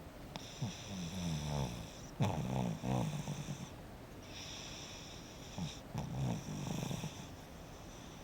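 A sleeping pet snoring: two long, rough snoring breaths, the first starting about half a second in and the second about five and a half seconds in.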